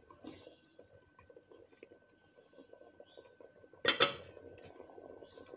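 Wooden spoon stirring thick tomato stew in a stainless steel pot, a soft low scraping and slopping, with one sharp knock of the spoon against the pot about four seconds in.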